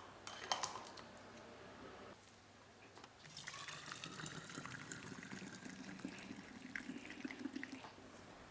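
Boiled lemon concentrate poured through a strainer into a container, a steady stream of liquid that starts about three seconds in and runs until near the end, its tone rising slightly as the vessel fills. A few light clinks of utensils come before it.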